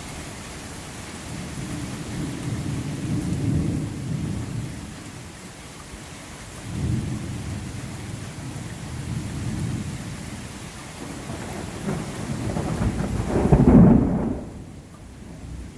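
Thunder rumbling over steady rain: several low rolling swells, the loudest building to a peak about fourteen seconds in before fading.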